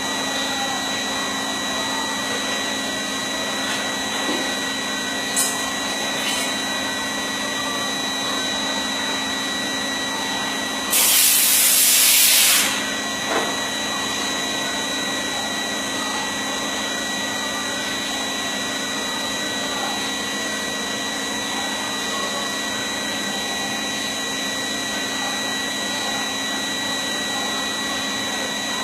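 CNC machine running steadily, its spindle and drives giving a hum with a steady high whine. About eleven seconds in, a loud hiss lasts under two seconds.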